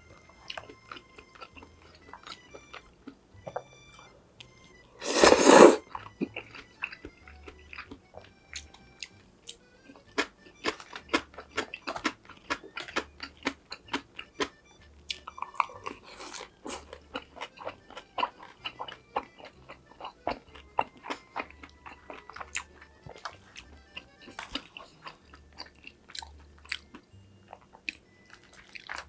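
Close-miked chewing of Korean-Chinese food with crisp crunching bites, dense and rapid from about ten seconds in, and one loud, longer noisy sound a little after five seconds.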